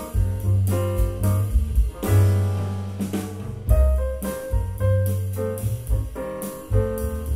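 Instrumental jazz music: piano over a walking double bass and a drum kit with regular cymbal strikes.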